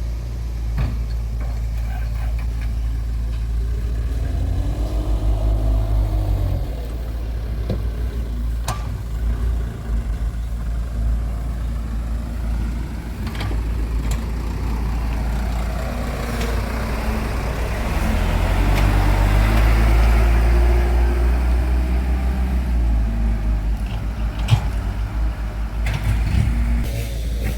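Dump truck engines running, swelling louder twice as a truck revs or passes, with a few sharp knocks.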